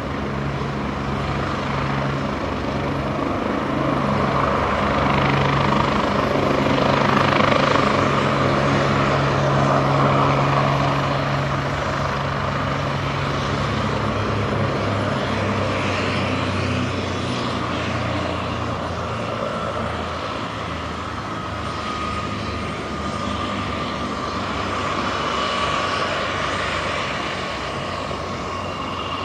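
Agusta A109E Power twin-turbine helicopter running on the ground with its main rotor turning: a steady low hum under a high turbine whine. About halfway through, both the hum and the whine drop slightly in pitch.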